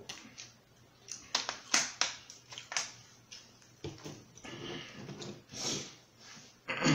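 Drinking from a thin plastic water bottle: gulps, with the plastic crackling in sharp clicks as it is squeezed, then the bottle set down on the table. Breathy mouth sounds follow, and there is a short, loud vocal exhale near the end.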